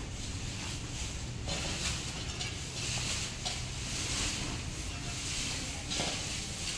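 Brooms sweeping dry leaves and dirt across bare ground in uneven swishes, several strokes a few seconds apart, over a steady low rumble of wind on the microphone.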